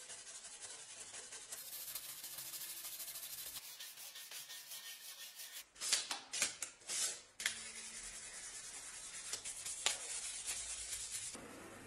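Wooden cleaver handle being sanded by hand, with fast back-and-forth rubbing strokes. About six seconds in there is a short cluster of louder, sharper scrapes and knocks, then the steady rubbing resumes and fades near the end.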